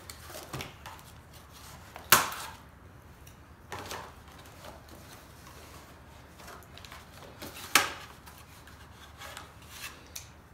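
Cardboard packaging rubbing and shifting as a boxed RC buggy is handled and cut free with scissors, with a few sharp snaps or clicks, the loudest about two seconds in.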